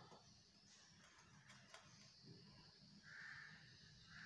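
Near silence: quiet room tone with a few faint clicks and soft handling noises.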